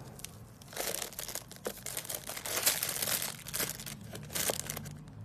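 Clear plastic wrap around a metal lightsaber hilt crinkling and rustling as it is handled, with a few sharp clicks among the crackle. The crinkling starts about a second in and dies away near the end.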